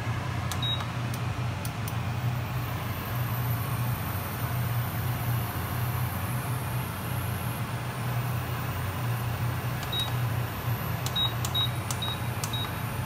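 American Home induction cooktop's control panel beeping at button presses: one short high beep about half a second in, then five quick beeps near the end. A steady low hum runs underneath.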